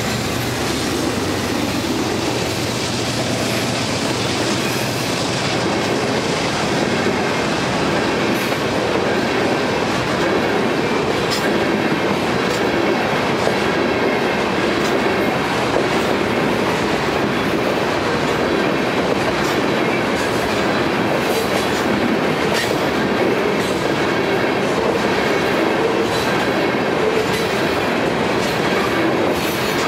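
Freight train of tank cars rolling past at close range: a steady rumble of steel wheels with frequent clicks over the rail joints and occasional faint wheel squeal. A locomotive's diesel engine is heard in the first few seconds, then gives way to the cars.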